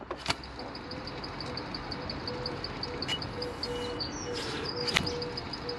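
Alternator from a BMW N47 diesel, off its belt, its pulley spun by hand: a steady whir with rapid, evenly spaced chirps, from the alternator's worn bearings.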